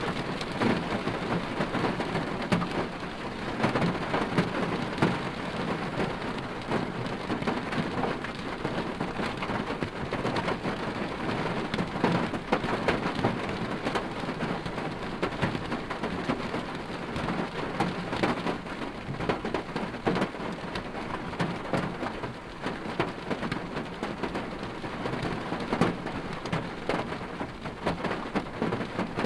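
Rain falling on a car's roof and glass, heard from inside the cabin: a steady, dense hiss made of many small drop hits.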